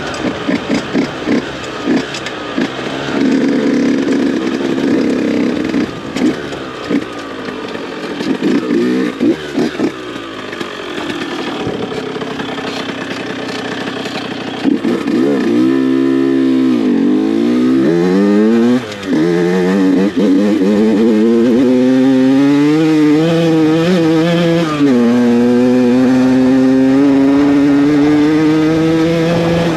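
Honda HM CRE 50 two-stroke moped engine, bored to 80cc with a DR 80 cylinder and a 19 mm Dellorto carburettor, being ridden hard. For about the first half it revs in short, uneven blips; then its note falls and climbs through the gears, with a sharp drop about 25 s in as it shifts before rising steadily again.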